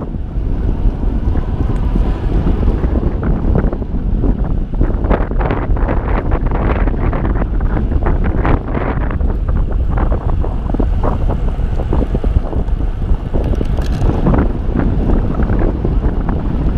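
Wind buffeting the microphone of a camera on a bicycle descending at speed: a loud, steady low rumble that gusts up and down.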